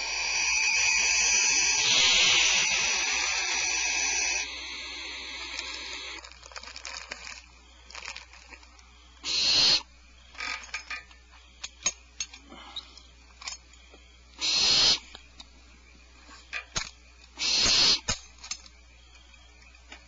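Barn owl nestlings hissing: one long hiss for the first four seconds or so, then short hisses about half a second long, three more times, with scattered sharp clicks between them.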